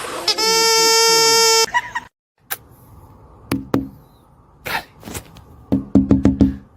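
A loud, steady buzzing tone, like a buzzer or horn, held for over a second and then cut off. After a short silence come scattered clicks and knocks and two brief runs of rapid low pulses, the second near the end.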